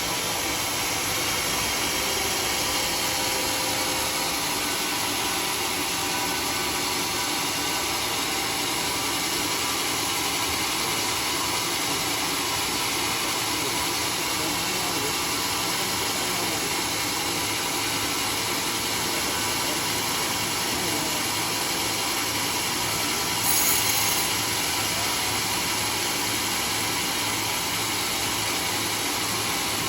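Sawmill machinery running steadily, an even dense noise, with a brief high hiss about 23 seconds in.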